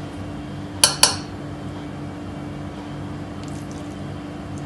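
Two quick metal clinks, a fraction of a second apart, about a second in: a utensil knocking against a stainless steel bowl while scooping rice-and-vegetable stuffing, over a steady low hum.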